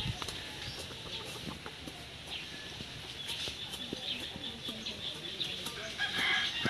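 Chickens clucking, with many short, scattered high chirps that grow busier in the second half.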